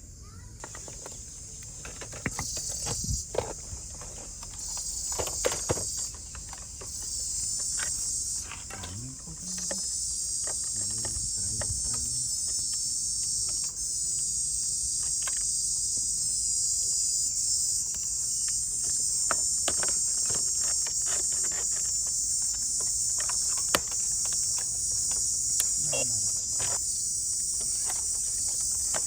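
Outdoor insect chorus, a dense high-pitched buzzing that starts and stops in patches at first, then keeps going steadily, with scattered light clicks and knocks.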